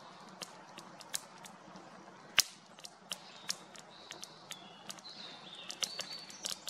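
Wood campfire crackling, logs and split firewood giving off irregular sharp pops, one much louder snap about two seconds in. From about four seconds in, a thin high wavering whistle sounds over the crackle.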